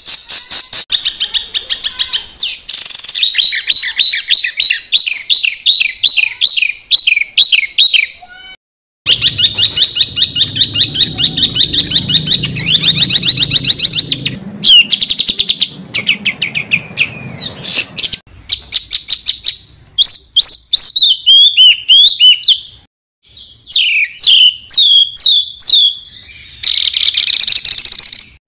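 Songbirds singing dense, rapid-fire 'tembakan' phrases, the staccato chirp runs used as masteran tutor song. Loud runs of quickly repeated notes come in phrases broken by short pauses, with a brief silence about nine seconds in and another near twenty-three seconds.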